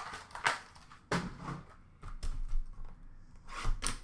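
A sealed cardboard box of trading cards being handled: a few short rustles and scrapes, with a quieter stretch in the middle.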